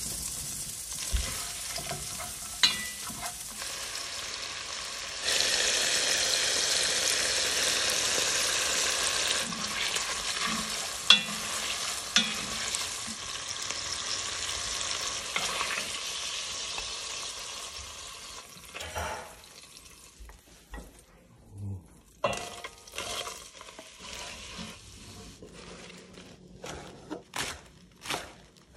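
Slices of linguiça sausage sizzling as they fry in a hot pot, with a few sharp knocks; the sizzle grows louder about five seconds in and dies down after about eighteen seconds. Then a knife chops kale on a wooden cutting board in separate strokes.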